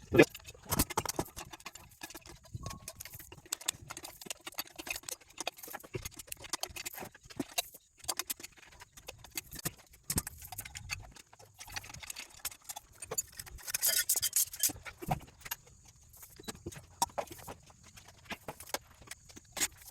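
Metal tools clicking and knocking irregularly against a metal pump unit while its bolts are being worked loose, with a quicker run of clicks about two-thirds of the way through.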